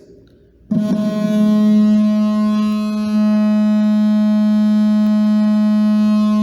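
A loudspeaker plays a steady 212 Hz tone from a phone's tone-generator app, a buzzy, unchanging pitch that starts about a second in.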